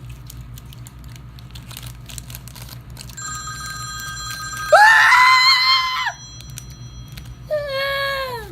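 A child's high-pitched squeal, rising and then held for over a second, followed near the end by a shorter cry that falls in pitch: reactions to eating a dried cricket.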